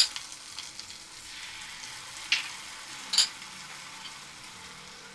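Mutton pieces and fried onions sizzling steadily in hot oil in a pressure cooker. Three sharp knocks come through, the loudest at the very start and two more past the middle.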